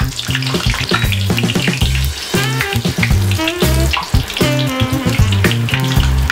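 Background music with a stepping bass line, over the steady bubbling sizzle of akara bean balls deep-frying in hot vegetable oil.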